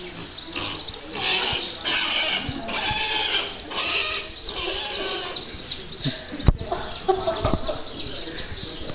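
Micro piglet squealing over and over as it is picked up and held, the calls high-pitched and about half a second each. A single sharp knock sounds about two-thirds of the way through.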